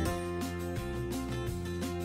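Instrumental background music with held notes that change every half-second or so.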